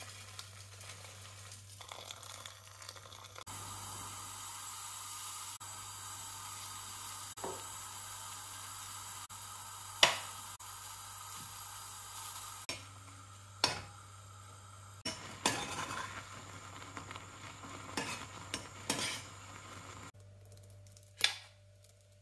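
Oats being made in a small metal pot on a gas hob: dry oats poured in, a steady hiss, and a spoon stirring and scraping in the pot. Sharp clinks of the spoon against the pot, the loudest about ten seconds in and several more in the second half.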